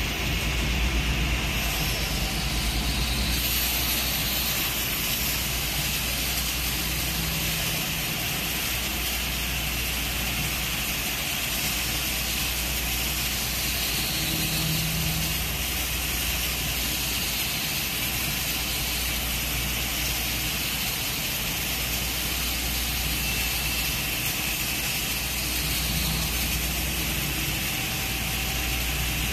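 Two-torch CNC wire-fed arc welding machine welding oil ports onto hydraulic cylinders: a steady arc hiss with the machine running.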